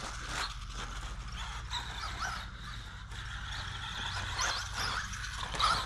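RC buggy's Velineon VXL-3s brushless motor whining, the pitch rising and falling with bursts of throttle, clearest near the end.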